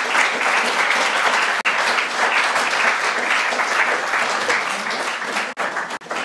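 Lecture audience applauding: dense, steady clapping that dies down near the end.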